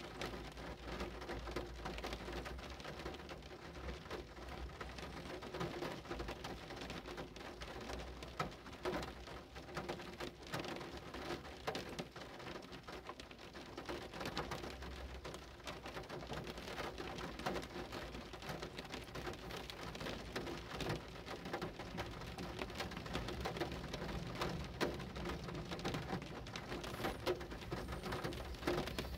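Steady rain falling, with many separate drops hitting a surface over an even hiss and a steady low rumble underneath.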